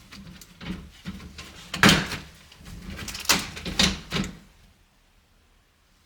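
Plastic clips of a Subaru Sambar sliding door's trim panel snapping loose as a trim remover tool pries the panel away from the door: a run of about six sharp snaps and cracks, the loudest about two seconds in.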